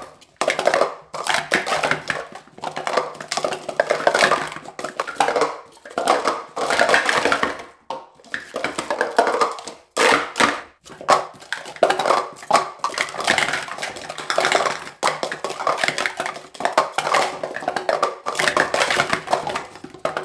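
Speed Stacks plastic sport-stacking cups clattering on stack mats as they are rapidly stacked up and down. The fast clicks come in quick runs separated by brief pauses.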